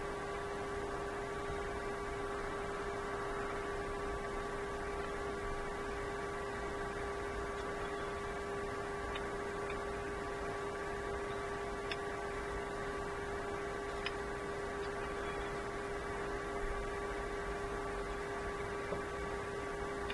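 Steady electrical hum with a few faint light clicks scattered through it.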